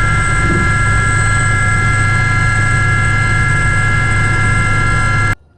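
Aérospatiale Gazelle helicopter in flight: its turboshaft engine and rotors run at a steady pitch, a high whine of several steady tones over a low drone. It cuts off suddenly near the end.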